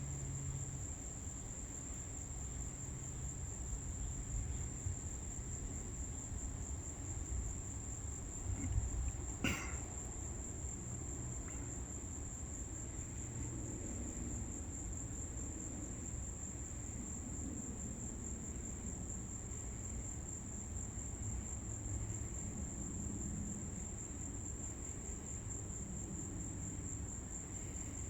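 A chorus of night insects holding one steady high-pitched trill over a low background rumble, with a single sharp click about nine and a half seconds in.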